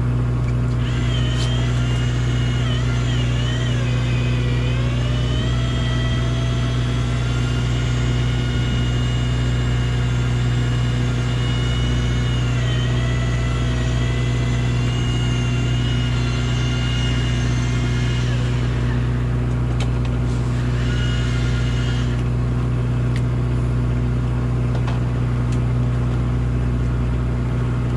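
Shimano Plemio 3000 electric fishing reel whining as its motor winds in line against a hooked hairtail. The pitch wavers and dips as the load changes, and the whine stops about 18 seconds in, with a short burst again around 21 seconds. Under it the boat's machinery keeps up a steady low drone.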